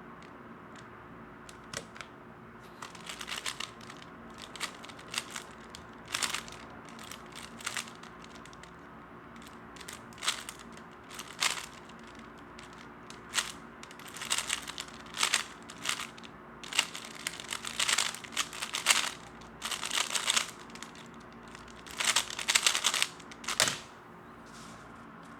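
A 3x3 speedcube being turned fast during a solve: rapid plastic clicking and clacking in clusters of turns, with short pauses between them.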